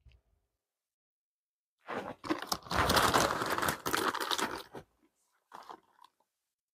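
Plastic snack bag crinkling and rustling as a hand digs into it, dense and crackly for about three seconds, with a few shorter rustles near the end.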